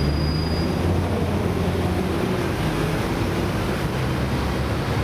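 Steady low rumble of heavy city traffic. A thin high squeal, like brakes or wheels, fades out within the first second.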